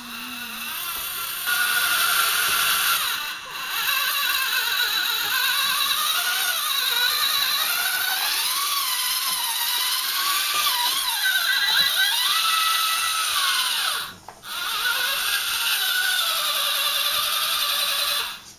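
Electric drive motor and gearbox of a scratch-built six-wheel RC trial truck whining under load as it climbs, the pitch rising and falling with the throttle. It cuts out briefly twice, about three and a half seconds in and about fourteen seconds in, and stops just before the end.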